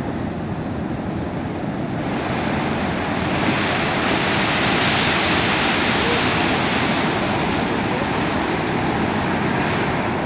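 Steady rushing of a large waterfall's falling water, growing fuller and brighter about two to three seconds in.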